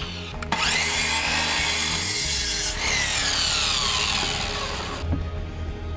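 Electric sliding compound miter saw spinning up about half a second in and cutting through a wooden board. The motor then winds down with a falling whine over the next couple of seconds.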